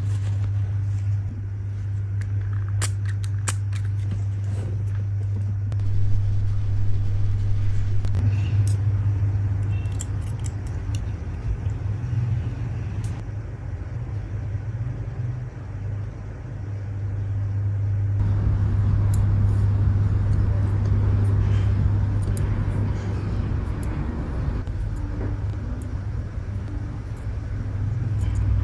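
Steady low hum with a rumbling background, over which come clusters of small sharp clicks from metal tweezers picking up and placing lash extensions.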